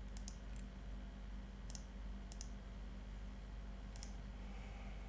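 Computer mouse button clicking about four times, some as quick press-and-release pairs, over a steady low hum.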